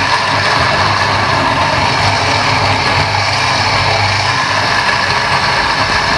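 Countertop blender's motor running steadily at speed, grinding roasted chillies, shallots, garlic, ginger and lemongrass with water into a wet sauce paste.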